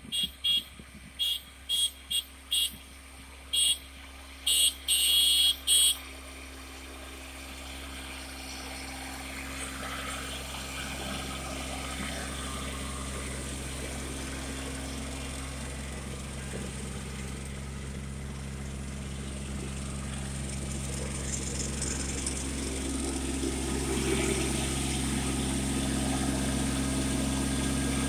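Kubota compact tractor's diesel engine running steadily, growing gradually louder as the tractor comes close, and loudest near the end. In the first six seconds about ten short, loud noise bursts come over the engine.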